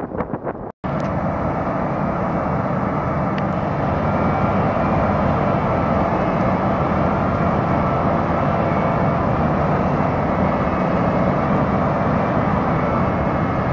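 Heavy diesel road-construction machinery running steadily at close range. The sound cuts out briefly about a second in, then carries on unbroken.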